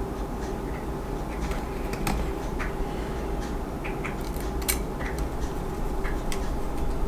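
Scattered small clicks and ticks of screws and plastic model-kit parts being handled and screwed together by hand, over a steady low hum.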